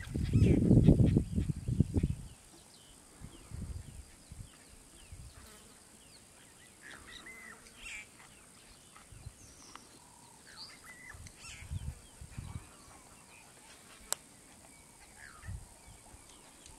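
Leopard feeding on a kill: a loud, low, rough rumble of growling and chewing in the first two seconds, then a few shorter low sounds, with birds chirping faintly in the background.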